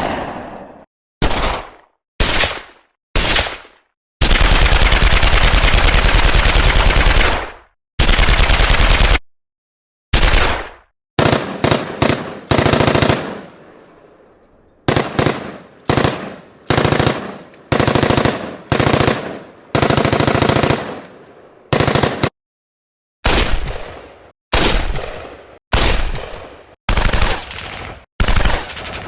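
Gunshot sound effects: a string of separate sharp shots, each trailing off, with two long bursts of rapid automatic fire about four to nine seconds in. Later shots come in quick groups of two or three.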